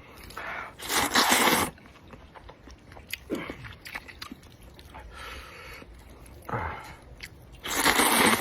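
Noodles being slurped loudly from a bowl of spicy noodle soup, twice: once about a second in and again near the end, with chewing and smaller mouth sounds between.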